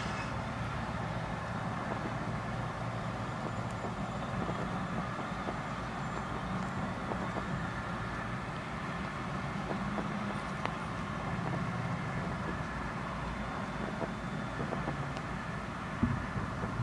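Steady low outdoor background rumble, like distant road traffic, with a couple of faint short pops, one about two-thirds of the way through and one near the end.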